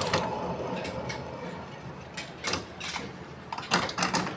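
Electric scooter's brushless hub motor running with a newly fitted hall sensor: a faint steady hum broken by several sharp knocks and clicks. It jerks because the axle is still loose.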